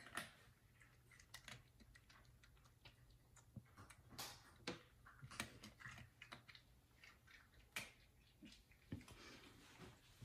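F2 Savannah cat eating dry kibble out of a plastic food storage bin: quiet, irregular crunches and clicks.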